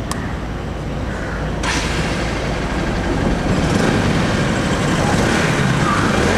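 Bajaj Pulsar NS 200's single-cylinder, liquid-cooled engine running with the radiator cap off, to purge air from the freshly refilled cooling system. A broad hiss joins about a second and a half in.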